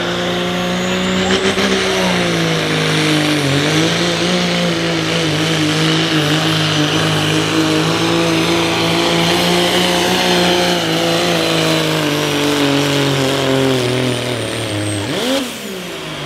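Diesel engine of a Ford Super Duty pro street pickup running at full throttle while pulling a sled, at high, fairly steady revs that slowly sag late in the run. About fifteen seconds in, the revs drop away sharply as the pull ends, followed by a brief rise.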